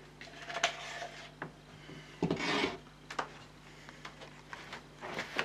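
Irregular scraping and rubbing strokes of a plastic scraper spreading wet filler into model railway track, the strongest stroke about halfway through.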